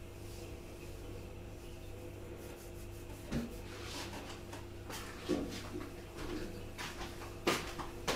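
Scattered knocks and rustles of someone moving about and handling things in a kitchen, starting about three seconds in, the loudest knock near the end, over a steady low hum.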